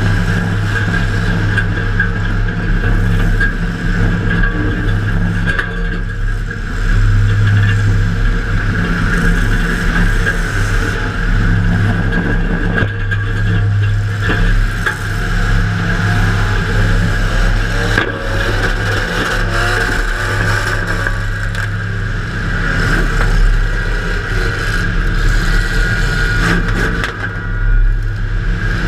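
Demolition derby car's engine running hard and revving, heard from inside the car, with a few sharp knocks and metal scrapes from impacts.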